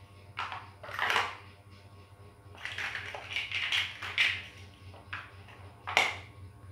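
Plastic toy building blocks clattering and knocking together as hands rummage through a loose pile of bricks, in an irregular run of clicks with a sharper click about six seconds in. A steady low hum runs underneath.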